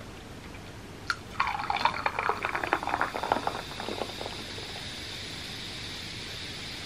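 A click, then a drink poured into a glass for about three seconds, followed by a steady hiss.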